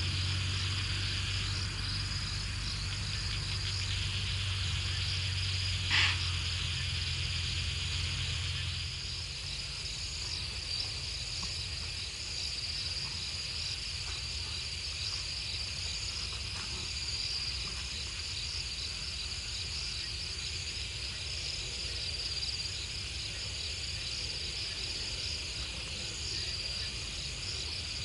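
Night chorus of crickets and other insects, a steady high-pitched chirring. A low hum underlies it for the first third and then stops, and one short sharp sound stands out about six seconds in.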